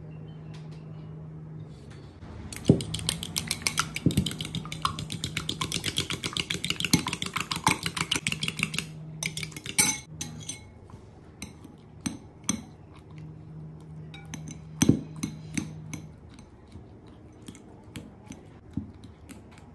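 Metal fork beating eggs in a glass bowl: a quick, even run of clinks against the glass, several a second, starting about two seconds in and stopping a little before halfway. Scattered single taps and clinks of the fork on the bowl follow.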